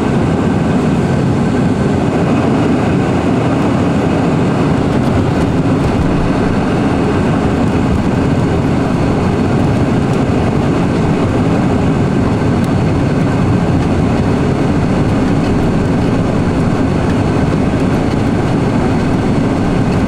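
Cabin noise inside a Boeing 747-400 airliner: a loud, steady rush of jet engines and airflow, even throughout with no change in pitch.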